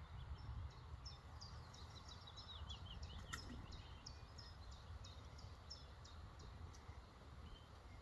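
A small songbird singing, a quick series of high chirps and trills, over a faint low rumble of wind on the microphone. One sharp click about three seconds in.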